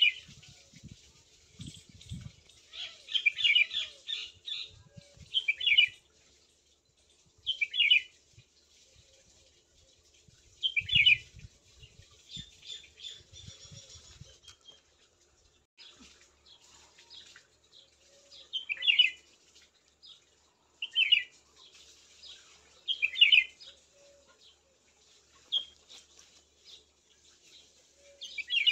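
Small birds chirping in short high calls, one burst every two or three seconds. Soft low thuds come in now and then, most around the start and about halfway through.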